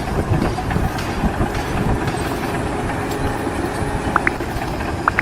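A steady, loud mechanical rumble with dense, irregular rattling and clacking.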